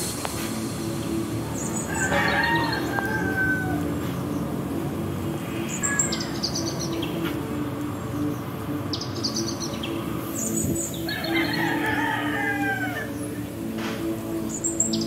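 A rooster crowing twice, once about two seconds in and again about eleven seconds in, with small birds chirping in short high bursts and a steady low hum underneath.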